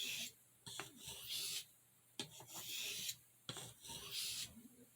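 A pocketknife's pen blade being stroked across an Arkansas sharpening stone. There are about four hissing strokes roughly a second apart, each starting with a light click as the edge meets the stone. These are passes to remove the burr raised on the edge.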